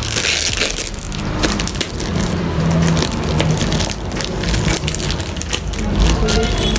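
Gift packaging crackling and tearing as it is opened by hand, a dense, irregular run of crackles.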